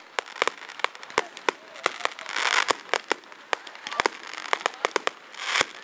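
Fireworks going off in a rapid, irregular string of bangs and crackles, with two denser bursts of crackle about two and a half seconds in and near the end.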